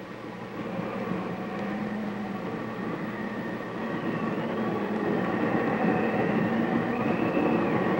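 Tornado wind on an old film soundtrack: a dense, train-like rumble with high whistling tones that glide up and down, growing steadily louder.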